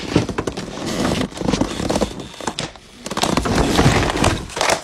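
A loud, chaotic scuffle and clatter on a hard wooden floor, with many knocks and thumps. It rises to its loudest about three seconds in. A phone is being jostled and dropped in a sudden commotion.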